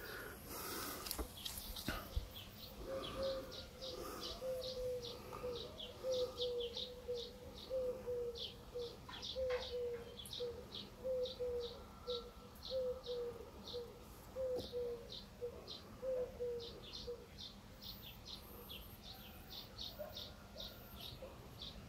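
Garden birds calling: one repeats a short high note about two to three times a second, while a lower call repeats steadily from a few seconds in until about three-quarters of the way through.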